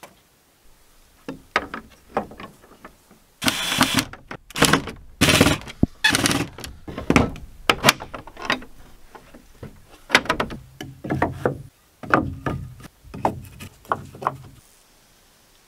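A run of knocks and thuds of wooden pallet boards being handled and fitted, with a few short scraping sounds in the first half and a metal door bolt being slid about halfway through. The sounds stop shortly before the end.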